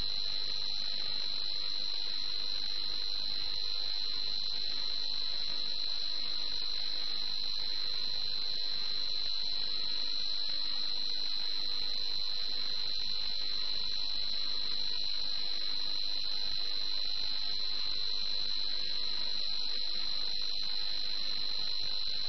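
Steady hiss of radio static with a constant high-pitched whine running through it: an air-traffic-control airband receiver between transmissions.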